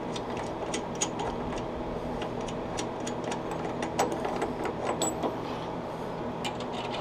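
Small metal clicks and scrapes of hex nuts being threaded and tightened by hand on a drill press's threaded depth-stop rod, fitting a lock for the spindle depth. The clicks come irregularly, more thickly near the end, over a steady low hum.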